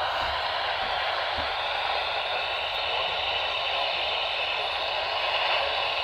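AM radio receiver tuned to 840 on the dial, putting out a steady hiss of static from a weak, distant signal.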